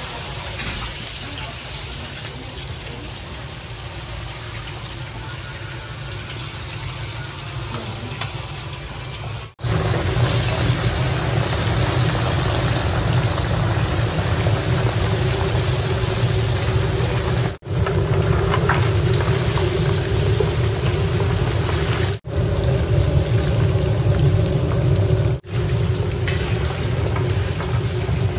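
Fish pieces deep-frying in hot oil in a kazan, a steady hissing sizzle of bubbling oil. It gets louder, with a low rumble underneath, after a cut about ten seconds in, and drops out briefly at a few later cuts.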